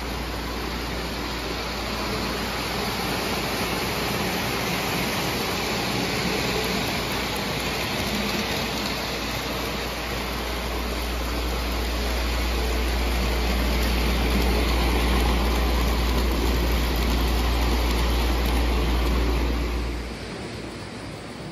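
O gauge three-rail model train, a steam locomotive with passenger cars, running on metal track: a steady rumble of wheels and motor that grows a little louder, then drops away sharply near the end.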